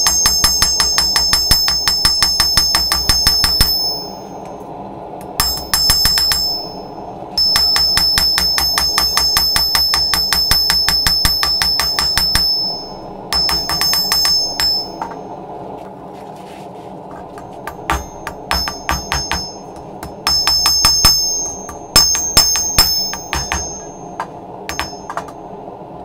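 Hand hammer forging red-hot bearing steel on a steel anvil: quick runs of blows, each with a bright high ring from the anvil, broken by short pauses and sparser strikes toward the end.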